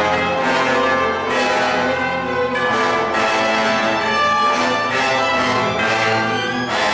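Live orchestra playing a loud, dense passage, with repeated accented strikes cutting through the sustained chords.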